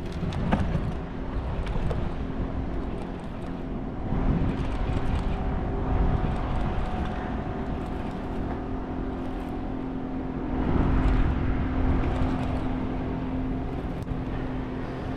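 A steady mechanical hum runs throughout, with wind rumbling on the microphone.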